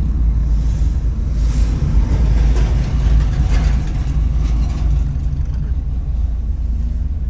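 Steady low rumble of a car driving on city roads: engine and tyre noise heard from inside the cabin.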